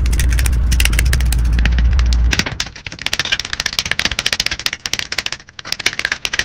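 Rapid, dense clicking and rattling of plastic model-kit parts being handled. A deep low tone sounds under it for about the first two seconds, then stops.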